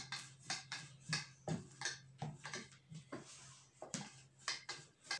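Long thin wooden rolling pin (oklava) rolling out yufka dough on a board, giving light irregular knocks about three times a second as it is pushed back and forth.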